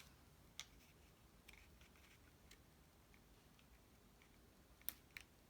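Near silence with a few faint clicks and taps of cardstock being handled and slid into place, the sharpest two close together near the end.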